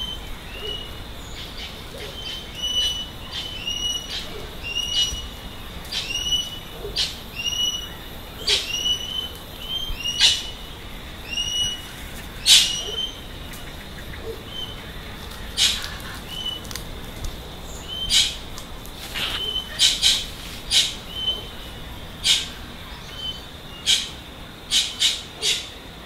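Cockatoos and parrots calling: a run of short clipped chirps repeated about every half second, broken by loud harsh screeches that come thicker in quick succession near the end.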